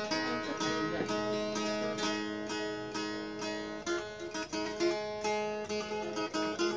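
Background music: a plucked string instrument playing a quick run of notes over held, ringing tones.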